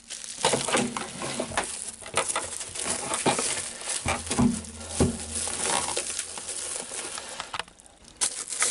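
Bubble wrap crinkling and rustling as a wrapped battery charger and its cables are handled and lifted out of a cardboard box, with a few light knocks. It dips briefly quieter near the end.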